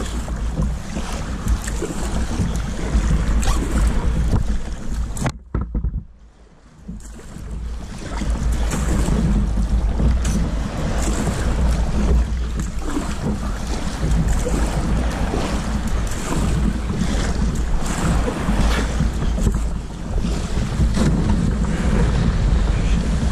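Wind buffeting a GoPro's built-in microphone over the wash of sea waves and splashing from a kayak on the water. About five seconds in, the sound suddenly drops away and is muffled for about two seconds, then comes back.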